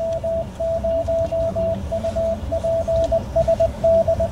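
Morse code coming over an amateur two-way radio: a single mid-pitched beep keyed on and off in quick dots and dashes.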